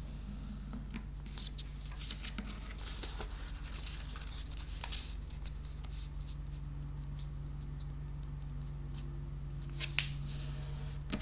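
A sheet of origami paper rustling and scraping as it is folded and its creases pressed down by hand on a cutting mat, over a steady low hum. A single sharp tick about ten seconds in.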